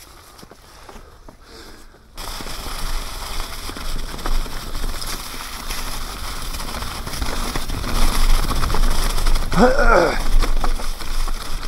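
Mountain bike tyres rolling fast over a thick layer of dry leaves, a steady crackling rush over low rumble that starts about two seconds in. A brief voice cuts in shortly before the end.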